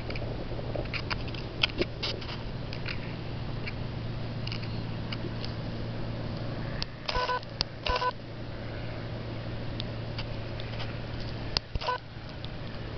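Three short flat beeps, two close together about seven seconds in and one near the end. They sound over a steady low hum and scattered small clicks.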